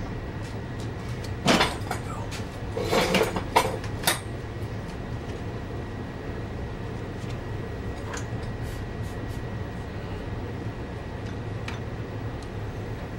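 A few short knocks and a brief rattle of small objects being handled on a work surface, in the first few seconds, over a steady low hum.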